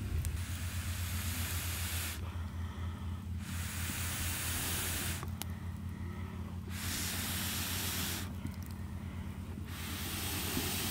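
Air blown onto glowing campfire embers in four long hissing puffs, each about one and a half to two seconds with short pauses between, as the embers are fanned back into flame. A steady low hum runs underneath.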